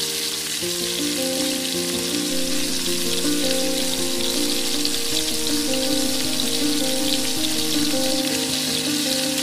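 Gram-flour-battered cauliflower pakoras sizzling as they deep-fry in hot oil in a small steel pan, a steady crackling hiss. Background music with slow, held notes plays over the frying.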